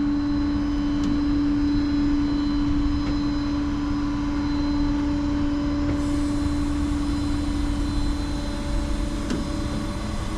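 Tow truck running, heard from inside its cab: a steady low engine drone with a constant hum over it.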